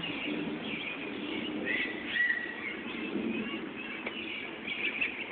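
Scattered short high chirping calls of small animals, with one longer whistled note about two seconds in, over a low background murmur.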